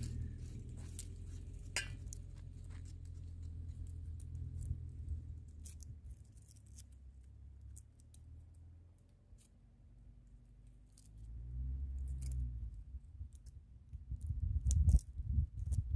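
A kitchen knife peeling and cutting a green squash by hand, heard as scattered small clicks and scrapes. Under it a low rumble of wind on the microphone, coming in strong gusts near the end.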